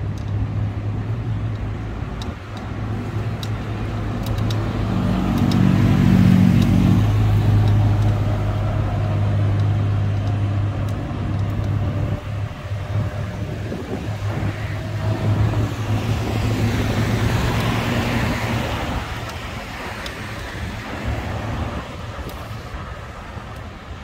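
Street traffic: a motor vehicle engine hums steadily close by, loudest about five to eight seconds in. Another vehicle passes and swells up around seventeen seconds in, then fades.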